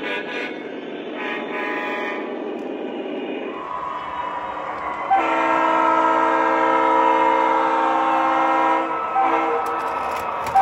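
Horns of O-scale model diesel locomotives sounding long chords of several notes. A passing model locomotive rumbles under the horn for the first few seconds. A louder horn chord starts about five seconds in and keeps sounding, with one short break.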